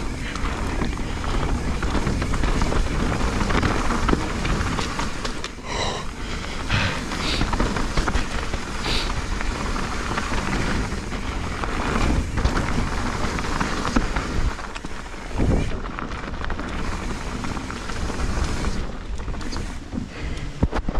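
Mountain bike ridden fast down a wet, muddy trail: a steady rush of tyre and wind noise, with occasional knocks from the bike over bumps.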